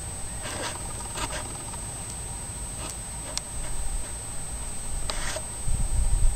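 Outdoor desert ambience: wind rumbling on the microphone, gusting louder near the end, under a steady high-pitched whine. There are a handful of short, faint scratchy rustles, about a second in and again around three and five seconds in.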